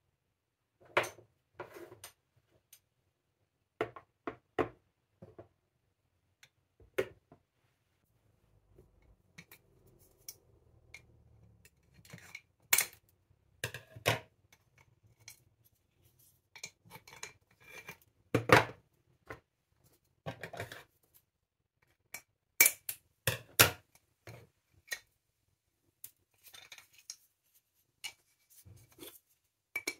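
Glass storage jars with bamboo lids and small wooden spoons being handled and set down on a plastic tiered rack: scattered clinks, taps and knocks with short pauses between them, a few sharper clicks in the second half.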